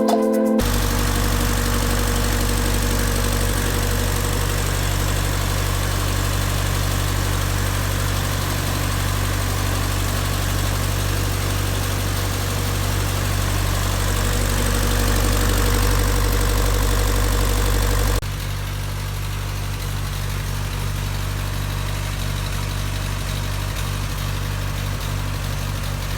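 Land Rover Series 3 engine idling steadily after its overhaul. About two-thirds of the way through, the sound drops suddenly to a lower level and keeps running.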